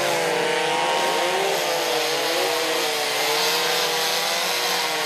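Chainsaw running at high revs as it cuts into a large log, its engine pitch wavering up and down with the load.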